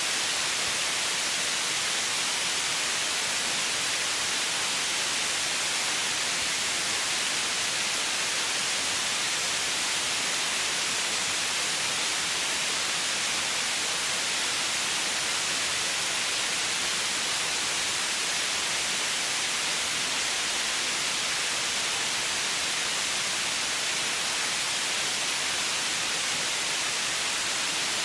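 Steady white noise: an even, unchanging hiss, brightest in the treble and thin in the bass.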